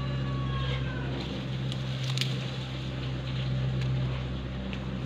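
Steady low hum of a honey bee colony around a box hive, with light rustling of a jute sack and a few faint clicks as the sack is handled on the box.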